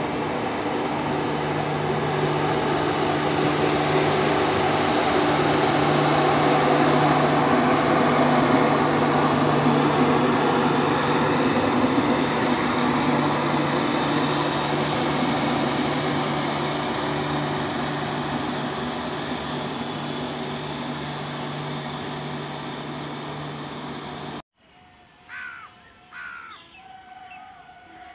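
LHB passenger coaches of an express train running past at speed: a steady rumble and rail clatter with a low hum, swelling and then fading. It cuts off suddenly near the end, and in the quiet a crow caws twice about a second apart.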